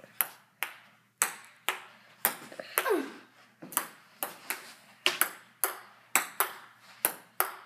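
Table tennis rally: the celluloid/plastic ball clicking off the paddles and bouncing on the table, a run of sharp pings about two a second.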